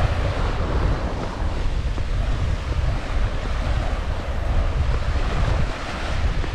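Ocean surf washing onto a sandy beach, with wind buffeting the microphone in a steady low rumble.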